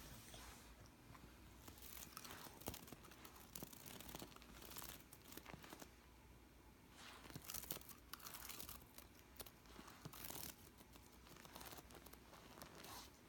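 Faint, irregular rustling and crunching, with a few sharp clicks scattered through.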